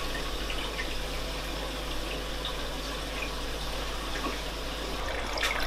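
Water running steadily down a reef aquarium's main drain line into the sump, with a low steady hum underneath. The drain's gate valve is being turned back to quiet the drain's gurgling.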